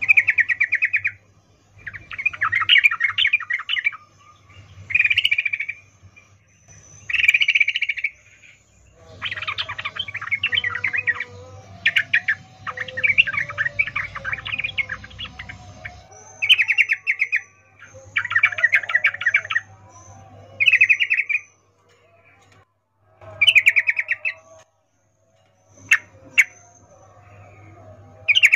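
Yellow-vented bulbul (trucukan) calling in about a dozen short bursts of rapid, chattering notes with brief pauses between them. It is offered as a female's breeding-season call to draw and excite males.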